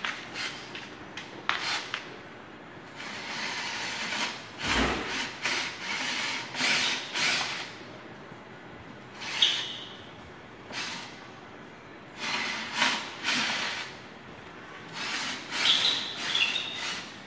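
Cordless drill driving screws into the frame of an art panel, in a series of short bursts with a brief high whine in some of them.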